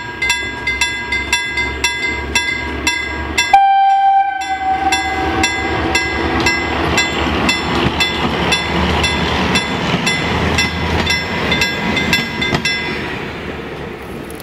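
Level-crossing bell ringing about three strikes a second as a Valmet Dm7 diesel railbus approaches. About three and a half seconds in, the railbus gives one long horn blast, falling slightly in pitch. Its engine and wheels then pass over the crossing, loudest in the middle, and the bell stops near the end as the noise fades.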